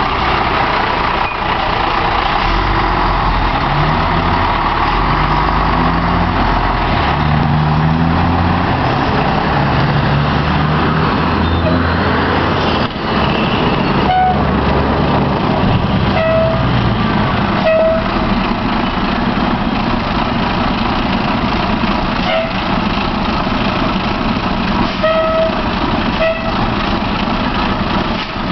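Fire engine backing in, its engine running loud with its pitch shifting in the first half, then short high beeps sounding at irregular intervals in the second half.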